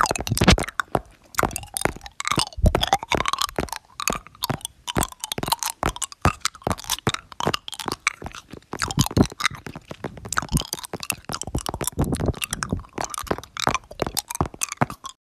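Rapid, irregular crunching and clicking sounds, close to the microphone and with no steady rhythm; they cut off abruptly near the end.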